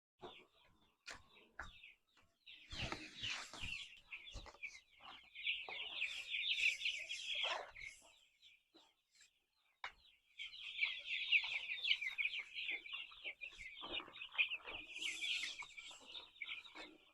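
A flock of chickens calling, many overlapping high chirps and clucks, dropping away briefly about eight seconds in and resuming a couple of seconds later. Scattered knocks and clicks sound in the first few seconds.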